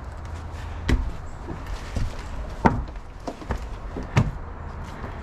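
A series of sharp knocks, about five at irregular intervals, over a low wind rumble.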